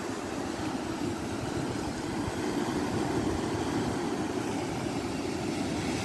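Steady rushing roar of ocean surf breaking on granite rocks, mixed with wind buffeting the microphone.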